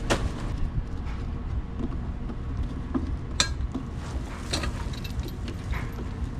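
A charcoal grill being lit: a few sharp metallic clicks and clinks, scattered over a few seconds, over a steady low rumble.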